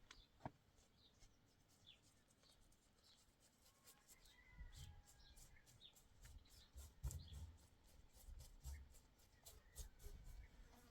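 Faint scattered small clicks and scratching, thickest in the middle, over soft low thumps and a few faint bird chirps.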